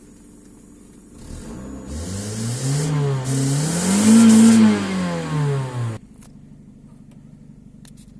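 Kia Cerato petrol engine revved twice, the pitch rising and falling each time with the second rev higher, then the sound cuts off abruptly about six seconds in.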